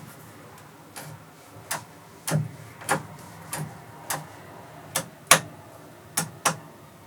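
About ten sharp clicks or knocks at uneven intervals, over a low steady background.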